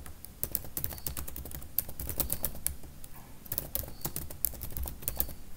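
Computer keyboard typing: quick, uneven runs of keystrokes.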